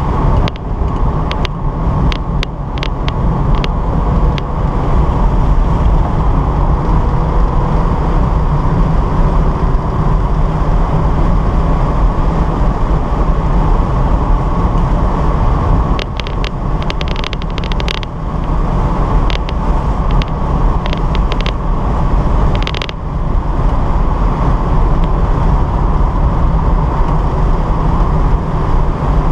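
1972 Datsun 240Z's 2.4-litre straight-six running hard at speed on track, heard from inside the cabin as a loud, steady drone. Clusters of short sharp rattling clicks come through in the first few seconds and again past the middle, and the sound briefly dips twice in the second half.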